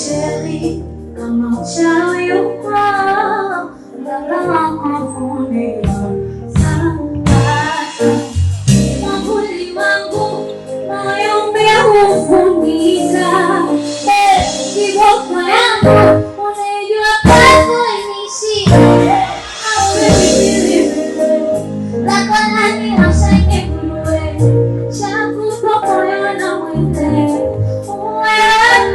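Female lead vocalist singing live over full band accompaniment, run through the stage sound system during a sound check.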